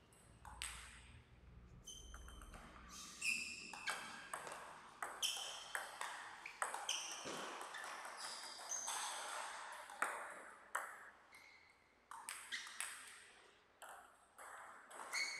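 Table tennis ball hit back and forth by rackets and bouncing on the table in quick rallies: a run of sharp, ringing clicks about two a second, with brief lulls between points.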